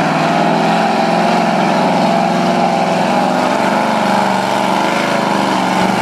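Engine of a lifted Ford Expedition mud truck on tractor tyres running hard and steady under load as it pushes through deep mud.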